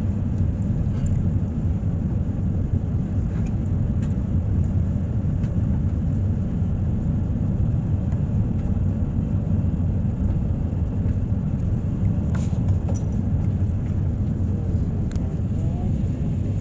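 Steady low rumble of engine and airflow noise inside an airliner cabin during the descent to land, with a few faint clicks.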